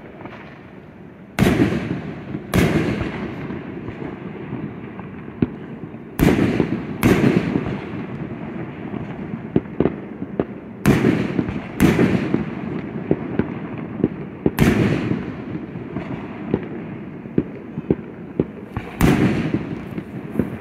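Aerial fireworks shells bursting one after another, about eight loud booms over twenty seconds, each trailing off in a rumbling echo, with smaller pops and crackles in between.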